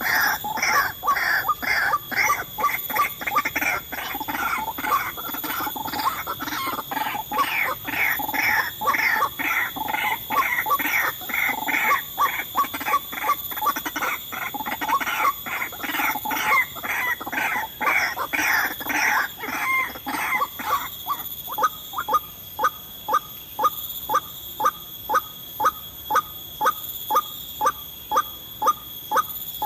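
White-breasted waterhen calling, a long run of harsh repeated notes at about two a second. After about twenty seconds the notes turn thinner and sharper and come more evenly spaced.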